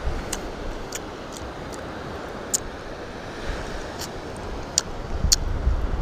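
Steady wash of surf with wind buffeting the microphone, the low rumble swelling a second before the end, and a handful of sharp clicks scattered through it.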